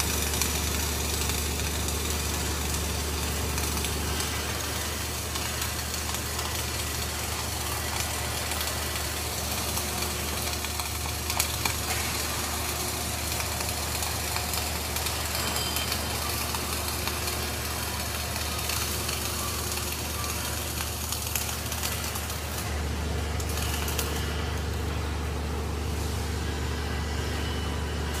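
Flux-cored arc welding: the arc gives a steady, dense crackling hiss, over a low steady hum of machinery that eases about four seconds in and comes back near the end.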